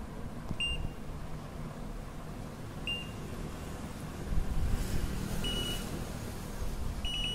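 Key-press beeps from an IFB top-load washing machine's control-panel buzzer: four short, high beeps spaced unevenly as buttons are pressed, showing the repaired PCB now responds to its buttons. A low rumble comes in about halfway through.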